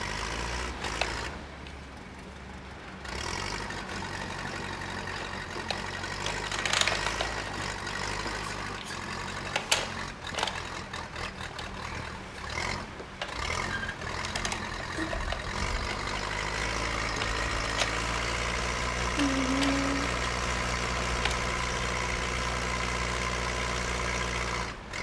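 Engine sound effect from a toy Cat skid steer loader: a steady diesel-like idle rumble that changes about three seconds in and again around fifteen seconds in. Short plastic clicks from the toy being handled run through the middle.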